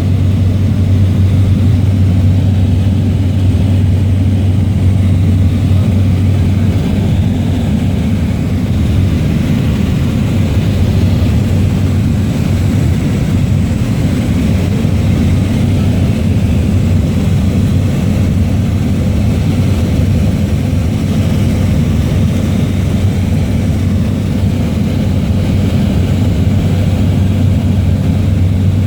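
Propeller aircraft engine drone in flight, heard from inside the cabin: a loud, steady low hum with no change in pitch or level.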